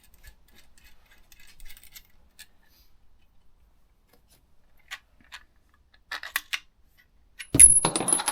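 Small metal parts of a bar-end mirror's clamp being taken apart by hand: scattered light clicks and ticks, then a louder metallic clatter with a brief high ring near the end.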